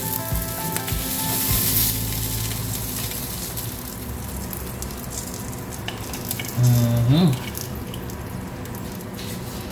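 Kingfish steaks sizzling on a hot grill pan, a steady frying hiss. About two-thirds of the way in there is a brief louder low tone that rises in pitch.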